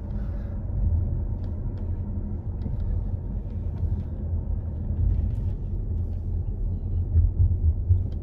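A car on the move: a steady low rumble of engine and road noise, with a few faint ticks.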